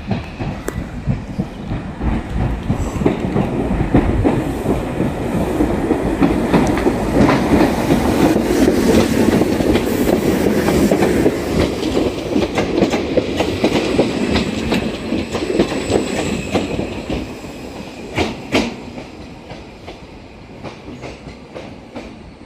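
Class 313 electric multiple unit running through the station. Wheels on the rails build to their loudest as it passes close by, about halfway through, with sharp clicks over the rail joints. The sound then fades as it draws away.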